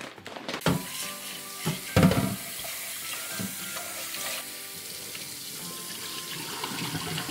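Kitchen tap running into a stainless steel pot of rice in the sink while a hand swishes the grains to rinse them: a steady hiss of running water, with a few louder knocks in the first two seconds.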